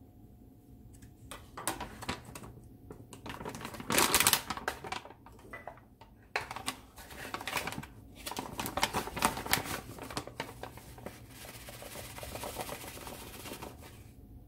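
A plastic bag of flour crinkling and rustling as it is handled, and a metal measuring cup scooping flour out of it. The sound comes in bursts of crackling, loudest about four seconds in and again around eight to ten seconds, then softer rustling near the end.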